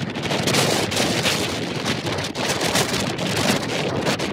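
Gusting storm wind rushing over the microphone, an uneven noise that surges and eases.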